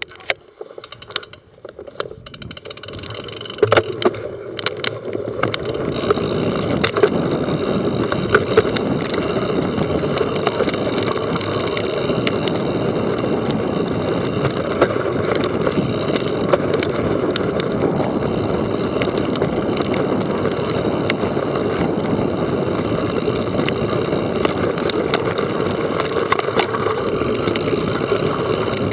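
Mountain bike descending a trail: steady tyre rolling noise and rush of air with frequent rattles and knocks over bumps, building up over the first few seconds as speed picks up.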